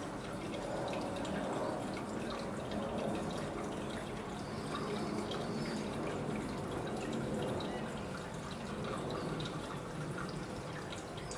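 Water poured steadily from a plastic bottle into a terrarium's pull-out water reservoir tray: a continuous trickle with small drips, refilling the tray that feeds the terrarium's pump.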